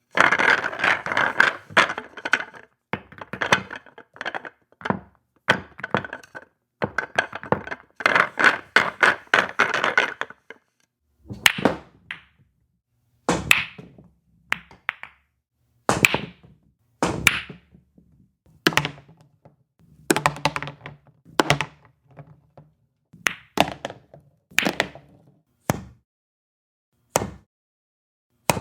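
Billiard balls clacking together. For about the first ten seconds there is a dense run of clattering knocks, then single sharp clacks every second or two, some with a low rumble under them.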